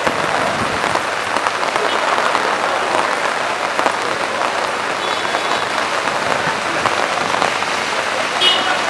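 Heavy rain falling steadily on a street and its surfaces, a dense even hiss of drops. A brief high-pitched sound rises above it near the end.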